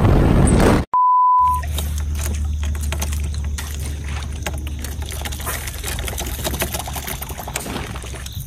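A single loud electronic beep, one steady pure tone about half a second long, comes about a second in, just after the running boat's engine and wind noise cut off. After it come lapping water, scattered small clicks and knocks from handling fishing gear, and a low steady hum.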